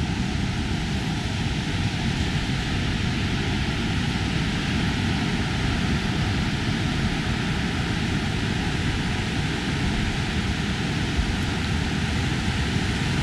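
Pacific Ocean surf breaking on the shore: a steady, even rush of noise with no single wave crash standing out.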